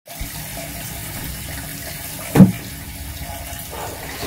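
Steady rush of water running from a kitchen tap, with one loud knock a little past halfway.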